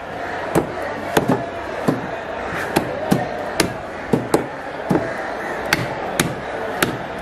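Heavy cleaver chopping pieces of red grouper on a thick wooden chopping block: a series of sharp, uneven chops, roughly two a second.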